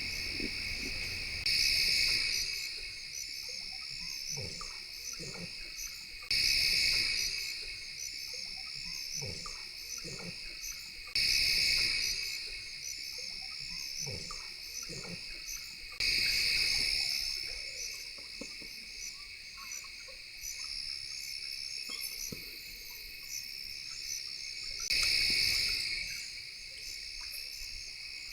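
Night insect chorus of crickets trilling steadily, swelling louder about every five seconds, with faint short low sounds scattered underneath.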